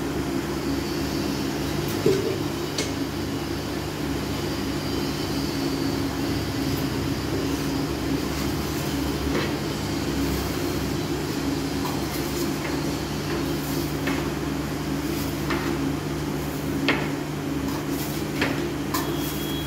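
A steady machine hum runs throughout, with scattered clicks, knocks and scrapes of a steel hand trowel working mortar against floor tiles.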